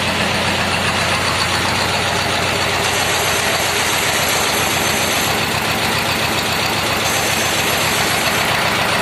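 T-25 tractor's two-cylinder air-cooled diesel engine idling steadily.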